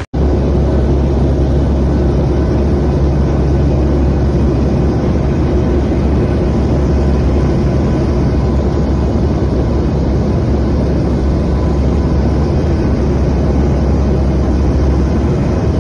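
Steady drone of an airplane's engines heard from inside the cabin: a low hum with a few steady tones over it.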